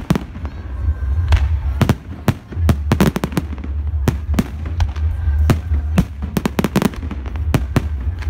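Aerial fireworks shells bursting in a rapid, irregular series of sharp bangs over a steady low rumble.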